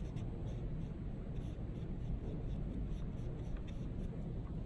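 Soft, irregular scratchy strokes of a small paintbrush spreading paint on paper, over a low steady room hum.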